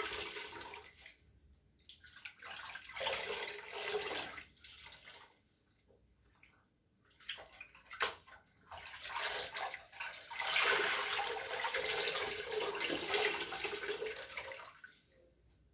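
Water running and splashing in spells with pauses between, the longest running most of the second half. One sharp click about halfway through.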